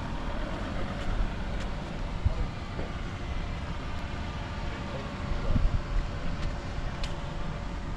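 Small-town street ambience: a steady low rumble of traffic with a faint steady hum in the middle, and a few light clicks.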